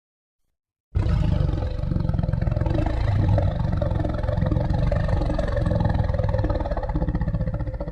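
A long, low, rough rumbling sound effect that starts abruptly about a second in, holds steady for about seven seconds, and begins to fade near the end.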